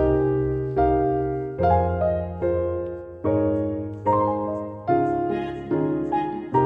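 Background piano music: slow sustained chords, a new one struck about every second and fading away.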